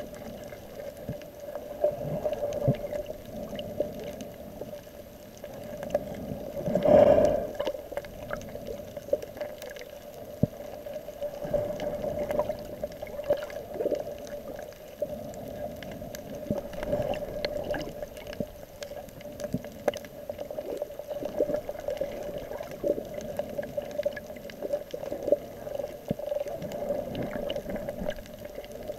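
Muffled underwater sound picked up by a submerged camera: a steady hum with a dull water wash, scattered small clicks and crackles throughout, and one louder swoosh about seven seconds in.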